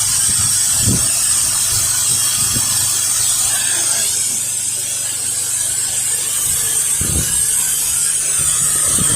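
Pressure washer spray hissing steadily from a lance during a low-pressure rinse, over a steady low hum from the machine. There are two brief low thumps, about a second in and near the seven-second mark.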